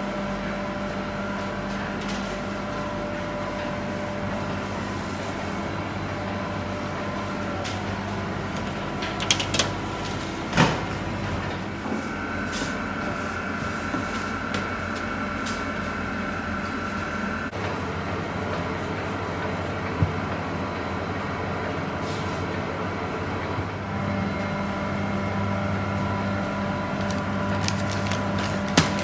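Steady hum of bakery kitchen machinery, its tone shifting a few times, with a few sharp knocks and clatters from work at the steel benches.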